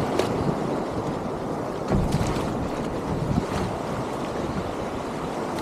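Small waves breaking and washing over marsh grass around a kayak, a steady rushing wash with a few sharper splashes, and wind buffeting the microphone.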